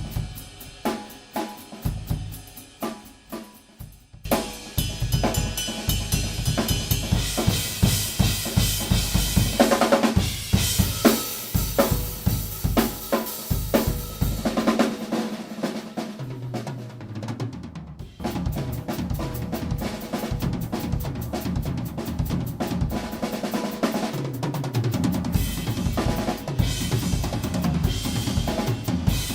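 Drum kit played solo: bass drum, snare and cymbals. It starts with sparse, spaced hits, then breaks into dense fills with ringing cymbals from about four seconds in. A brief lull comes a little past the middle before steady, busy playing resumes.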